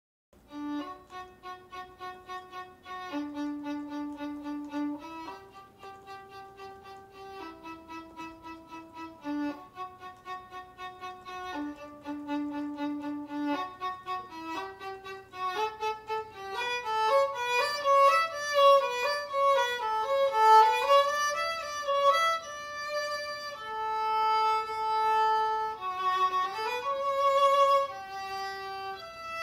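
Instrumental background music with a single melodic line: quick repeated notes alternating between a few pitches at first, then, about halfway through, a louder, faster melody that runs up and down.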